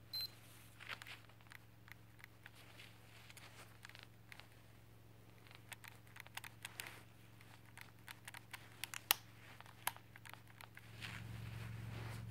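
Minolta X-700 film SLR body being handled: a short high electronic beep at the start, then scattered light clicks and ticks from its dial and controls, with one sharper click about nine seconds in. A steady low hum runs underneath and gets louder near the end.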